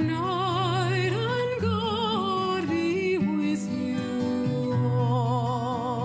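Background music: a slow melody of long notes with wide vibrato over held low notes.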